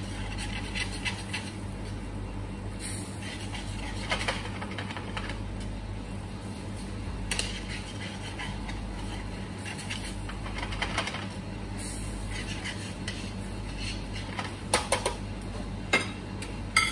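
Chicken thighs in a cream sauce simmering and reducing in a pan over a steady low hum. Near the end come a few sharp clinks of a utensil against the pan.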